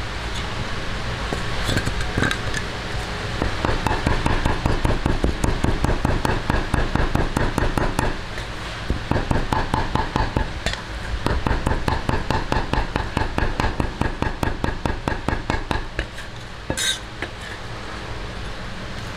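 Kitchen knife chopping on a cutting board in two long runs of quick, even strokes, followed by a single sharp clink near the end.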